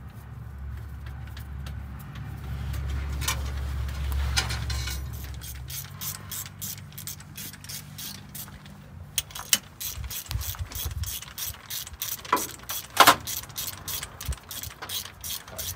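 Ratchet wrench clicking in quick, even runs of about four clicks a second, with a few louder metallic knocks, on an engine being bolted back together. A low steady hum underlies the first few seconds and fades out.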